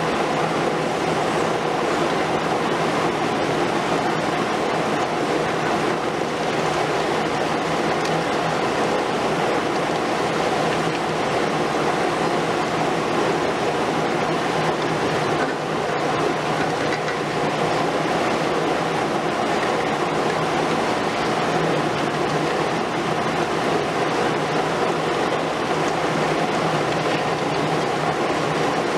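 Liebherr R 950 Demolition long-front excavator working: its diesel engine runs steadily under hydraulic load, mixed with a continuous grinding of concrete being broken by its demolition tool.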